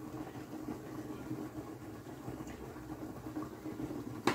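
Steady low mechanical hum with a faint hiss beneath it. One sharp click comes near the end.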